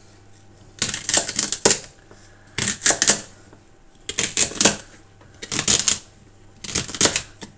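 Kitchen knife chopping a bunch of celery stalks on a cutting board: five quick runs of chops, each several strokes, with short pauses between.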